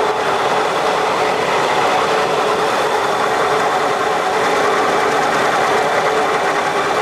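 Manual lathe running steadily at 500 rpm, its headstock gearing giving a steady whine, while a carbide insert takes a light skim facing pass across the end of a soft cold-rolled steel bar.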